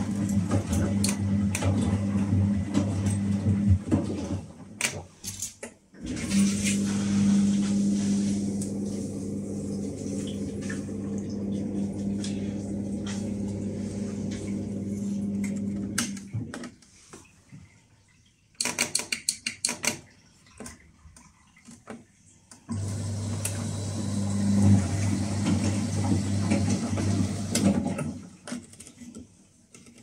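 Whirlpool TDLRS 70210 top-loading washing machine running with a steady low hum. The hum stops about 4 s in and again about 16 s in, then starts again each time. A quick run of clicks comes a little after halfway, as the programme dial is turned.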